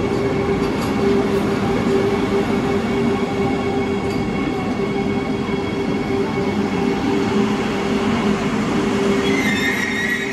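Karnavati Express passenger train running on the track, heard at an open coach door: a steady rumble of wheels on rails with a humming tone. A high squeal comes in near the end.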